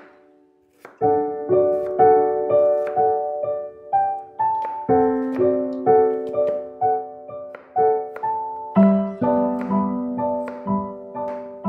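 Background piano music, a gentle melody of struck notes that starts about a second in.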